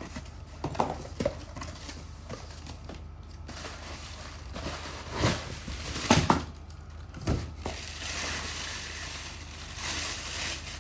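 Packaging being handled as a telescope mount is unpacked: plastic crinkling with a few scattered knocks, turning into a steadier rustle over the last few seconds.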